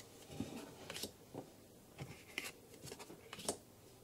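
Trading cards being handled and swapped in the hand: a handful of faint, short swishes and taps as one card is slid off the stack and the next brought to the front.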